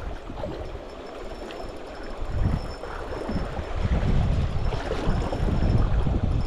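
River water rushing steadily, with an irregular low rumble that grows louder about two seconds in.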